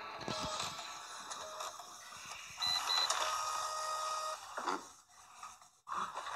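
A person snoring while asleep. About two and a half seconds in there are two short high beeps, followed by a steady electronic tone lasting about a second.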